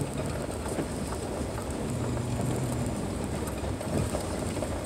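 Car driving on a dirt and gravel road: a steady low engine hum and tyre rumble, with small scattered crackles of gravel under the tyres.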